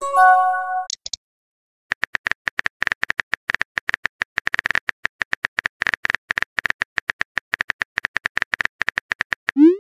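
Texting-app sound effects: a short message-arrival chime at the start, then a steady run of simulated phone-keyboard typing clicks, several a second, from about two seconds in. Near the end a quick rising swoosh begins as the message is sent.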